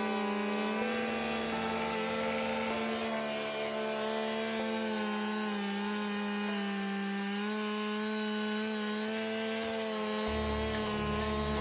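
Gas chainsaw at full throttle cutting through a large log, its pitch sagging slightly under load, with background music over it and a bass line entering near the end.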